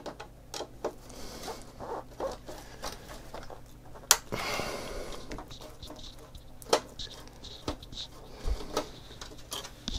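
Long screwdriver turning out a screw that holds the Macintosh Plus analog board to the chassis: scattered small clicks and scrapes of the tool, with one sharper click about four seconds in.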